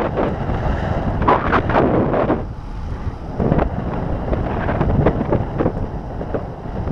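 Wind buffeting the microphone of a camera moving along a road: a steady low rush with irregular gusts, strongest in the first couple of seconds.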